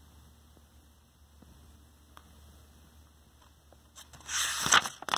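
Faint steady room hum, then about four seconds in a picture book's paper page is turned: a brief rustling swish lasting about a second.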